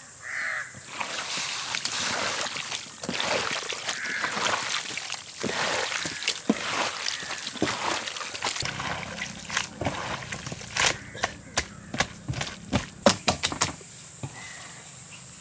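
Hands mixing squid rings with masala paste and crystal salt in a large aluminium basin: wet squelching and slapping, with a run of sharp clicks in the second half.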